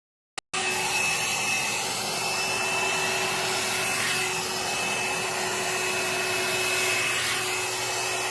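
A hot air brush switched on with a click, then running steadily: an even rush of blown air with a steady high whine and a lower hum from its motor.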